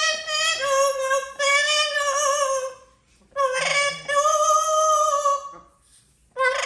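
Amazon parrot singing a song in its own voice: phrases of long, high, wavering notes, broken by short pauses about three seconds in and again near the end.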